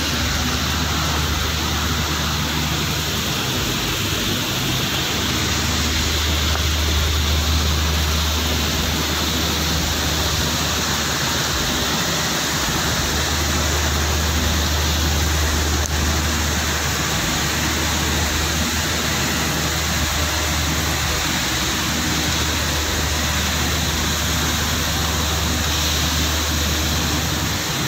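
Steady rushing noise of chemical-plant equipment with a continuous low hum underneath, unchanging in level.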